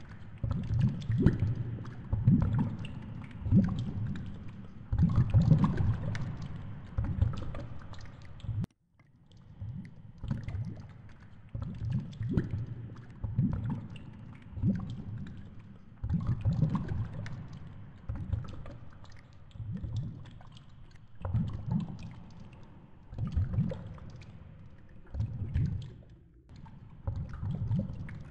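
Underwater noise picked up by a GoPro in its waterproof housing on a fishing rig: low sloshing surges about once a second as the rig moves with the boat's rocking.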